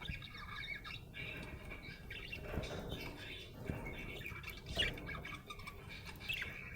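Budgerigar chattering: a continuous warble of quick chirps and squawky notes, with a few sharper calls about a second in and near five seconds.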